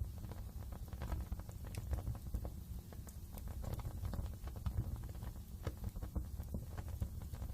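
Wood fire crackling in a fireplace: irregular sharp pops and snaps from the burning logs over a steady low rumble of the flames.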